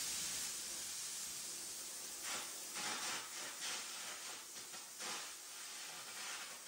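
Air carbon arc gouging with a quarter-inch carbon rod: a steady high hiss of the compressed-air jet and arc, with irregular louder surges, as the old weld holding the broken bucket hook is blown out.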